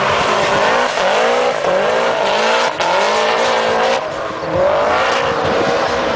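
Subaru drift car's flat-four engine revving up and falling back again and again, about once a second, as the car slides, with the tyres squealing and smoking on the tarmac.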